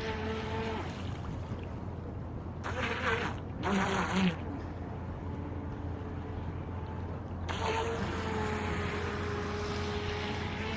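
Electric motor of a small radio-controlled speedboat whining with a steady pitch over a constant low hum. The whine fades about a second in and returns near the end. Two short, louder bursts of another sound come about three and four seconds in.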